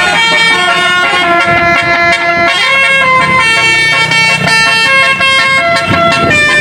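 Basuri telolet musical horn on a vehicle playing a loud tune: a melody of held notes that step up and down, each lasting about half a second to a second.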